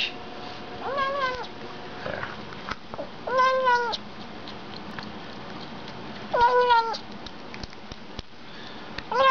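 A Bengal cat making short meowing calls while it eats, three calls of about half a second each, a few seconds apart, with a fourth starting at the very end; each rises slightly and then falls. Faint clicks sound between the calls.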